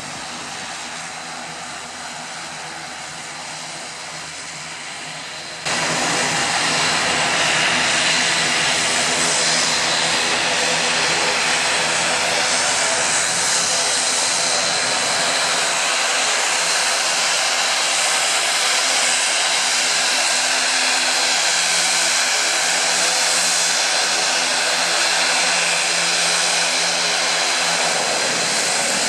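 Dornier 328 turboprop engines running with propellers turning: a loud, steady turbine whine and hiss over a low drone of propeller tones. About six seconds in it jumps suddenly louder, and the low drone drops away near the end.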